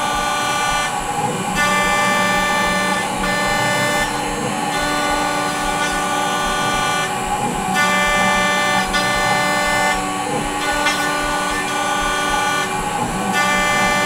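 APSX Spyder desktop CNC mill running a facing program: a loud, steady whine from its stepper-motor axis drives, with the pitch changing every second or two as each move starts and stops.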